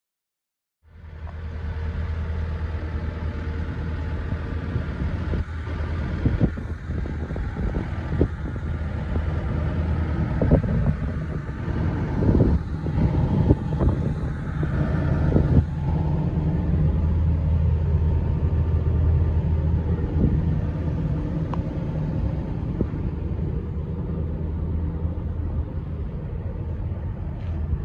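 Hitachi ZX130LCN-6 excavator's diesel engine idling steadily, a low even drone, starting about a second in, with scattered light knocks from about five to sixteen seconds in.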